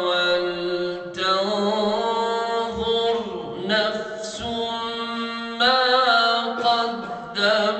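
Islamic devotional chanting by men's voices: long, drawn-out melodic phrases with wavering held notes, separated by short breaks, over a steady low sustained tone.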